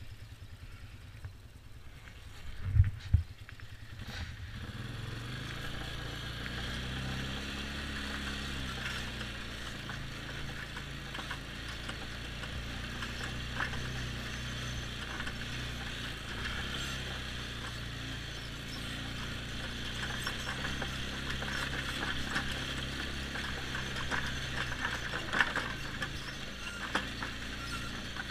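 2007 Polaris X2 ATV engine running as the quad is ridden over snow, with the steady engine note picking up about four seconds in after two sharp thumps just before it. Small knocks and rattles come through over the running engine.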